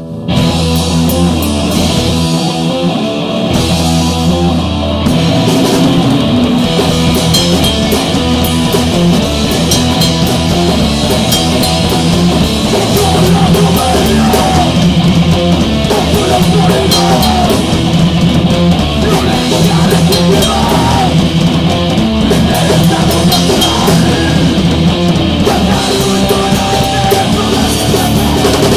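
Punk rock band playing at full volume, with electric guitar and a drum kit, in a rehearsal recording.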